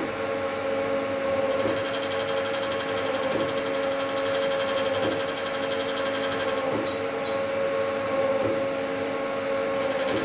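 CNC lathe running: a steady machine whine made of several held tones, with a faint sweep in pitch that comes back about every one and a half to two seconds.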